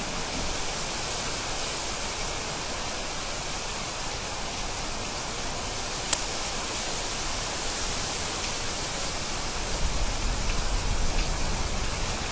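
Steady heavy rain falling, with one sharp click about six seconds in and a low rumble of distant thunder swelling near the end.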